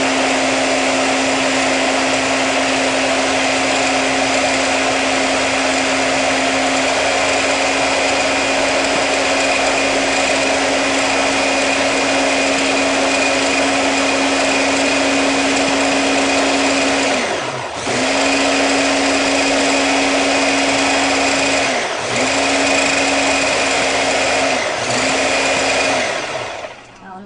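Electric hand blender with a chopper-bowl attachment running steadily, puréeing tofu with water. Its motor cuts out briefly three times in the second half as the button is let go and pressed again, then stops near the end.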